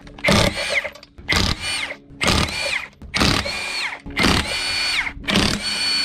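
Impact wrench spinning off wheel lug nuts in six short bursts, one after another. Each burst ends in a falling whine as the tool winds down.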